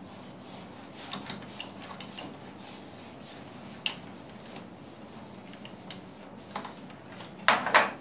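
A whiteboard being wiped clean by hand, with repeated rubbing and scraping strokes across its surface and a few louder strokes near the end.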